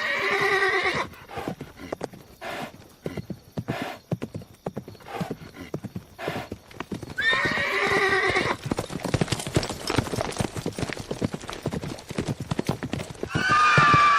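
A horse whinnies three times, near the start, about seven seconds in and at the end, each a quavering call of about a second. Hooves clip-clop quickly and steadily throughout.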